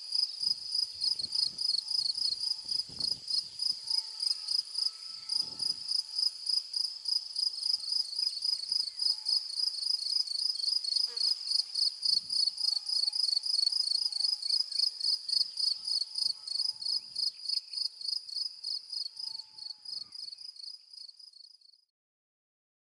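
An insect singing a loud, high-pitched song of rapid, evenly repeated pulses. It fades over the last few seconds and stops abruptly near the end.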